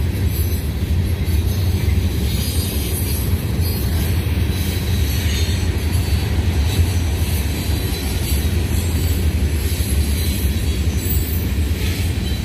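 Freight train cars rolling past close by: a steady low rumble of wheels on rail, with a faint squeal from the wheels.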